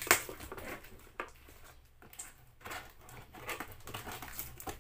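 Cardboard shipping box being handled and its packing tape cut open: a sharp knock right at the start, then irregular rustling, scraping and small clicks of cardboard and tape.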